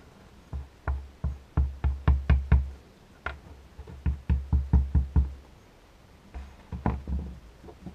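Quick runs of dull wooden knocks and thumps on a wooden workbench as small wooden blocks and a glue bottle are handled. About four knocks a second, in three bunches with short pauses between them.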